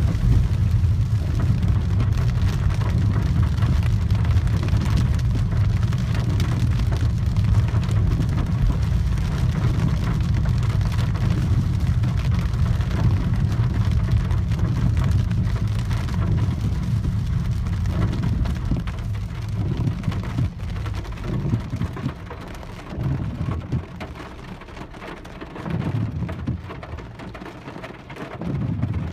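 Heavy rain heard from inside a Peugeot 408's cabin: rain on the car body and windshield over a steady low rumble of tyres on the wet road. About two-thirds of the way through the rumble eases as the car slows to a stop in traffic, leaving the rain with a few brief low rumbles.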